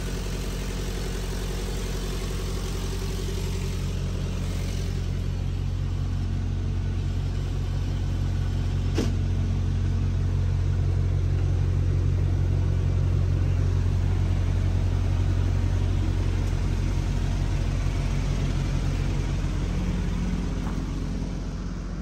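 Diesel engine idling steadily, swelling louder for several seconds in the middle and then easing back, with one sharp click about nine seconds in.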